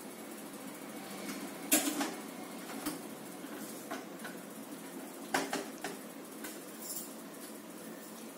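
Scattered light clicks and taps of a screwdriver and screws as a motherboard is screwed down inside a computer case. The sharpest click comes a little under two seconds in, with a small cluster a little past halfway.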